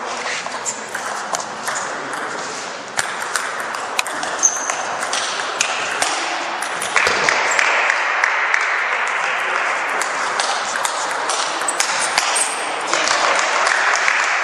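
Table tennis ball clicking sharply off the table and rackets again and again. About seven seconds in, spectators clapping join in and carry on.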